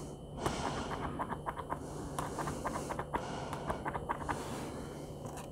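Acrylic paint pen nib working on sketchbook paper: a faint, irregular run of small clicks and ticks as the white paint is put down.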